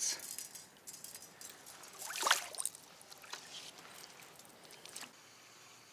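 Shallow lake water splashing and trickling, with one louder splash about two seconds in and a few faint clicks.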